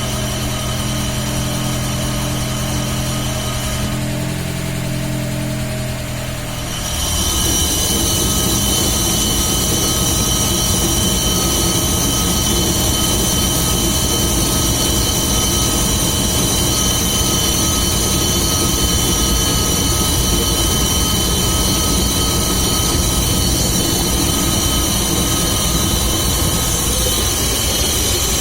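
VAZ 2101–2107 running up on stands. About seven seconds in, the sound grows louder and a steady drivetrain hum sets in from the rear axle with the wheels turning. The hum comes from a worn-out rear axle shaft bearing whose cage has broken apart, a noise easily mistaken for a whining differential.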